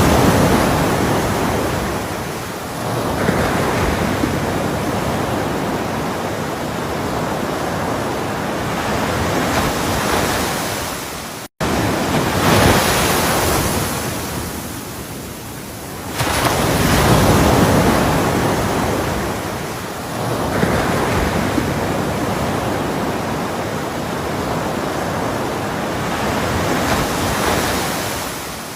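Ocean waves breaking and washing up a shore: a continuous rushing surf that swells and ebbs every few seconds. There is a momentary dropout to silence a little over a third of the way through.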